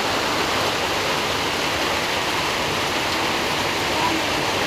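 Heavy rain falling in a steady, loud hiss.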